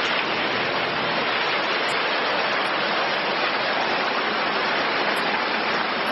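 Waterfall, falling water rushing steadily at close range.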